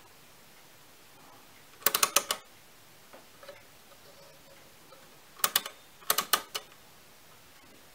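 Setting levers of a Hamann Automat V mechanical calculator being slid by hand, clicking through their notches as a number is entered: one quick run of clicks about two seconds in, and two more about five and a half and six seconds in.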